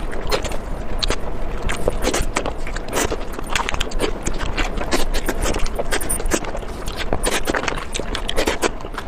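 Close-miked eating sounds: a person rapidly biting and chewing crunchy food, a dense run of irregular crisp crunches and wet clicks throughout.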